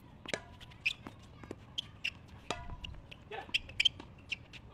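A tennis rally on a hard court: the ball is struck and bounces in a string of sharp knocks, with short squeaks from the players' shoes. Two of the hits, about a third of a second and two and a half seconds in, ring briefly.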